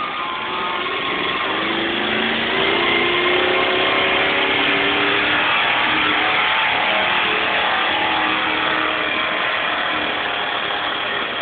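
Modified pulling truck's engine running hard at high revs as it drags a weight-transfer sled, its pitch climbing over the first few seconds and then holding steady.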